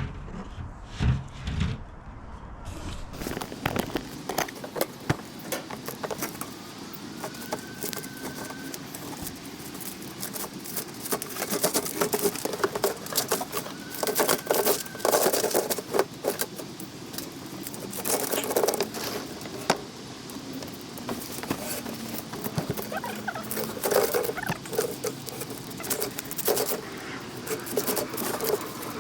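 Irregular clattering and tapping of hand work, with two short high squeaks.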